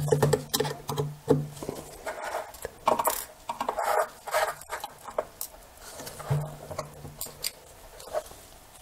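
Small irregular clicks, taps and scrapes of a precision screwdriver and tiny screws against a lens's metal bayonet mount and a plastic cap, with rustling of gloved hands.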